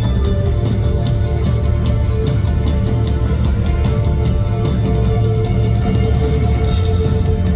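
Live rock band playing loudly: guitars and bass sustain heavy chords over a drum kit, with cymbal and drum hits coming through regularly.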